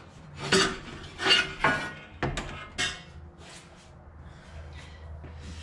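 Metal clanking and clinking as a steel exhaust manifold is worked free and lifted out of an engine bay, knocking against engine parts. There are five sharp knocks in the first three seconds, then quieter handling.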